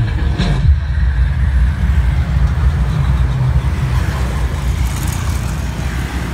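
Deep, continuous bass from a pair of subwoofer cabinets loaded with B&C drivers playing music, with motorbikes passing close by.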